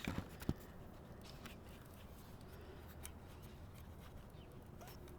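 Quiet room tone with a low hum, broken by two small sharp clicks in the first half-second and a few fainter clicks later: light handling noise.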